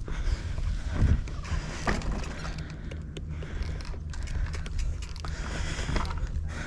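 Mountain bike riding over a dirt trail: a steady rumble with scattered rattles and knocks.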